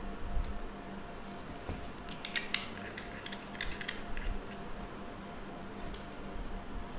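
Small screwdriver scraping and clicking on the terminal screw of a plastic bulb holder as a wire is tightened into it, with light plastic handling clicks; the densest run of scratchy strokes comes about two and a half seconds in. A faint steady hum runs underneath.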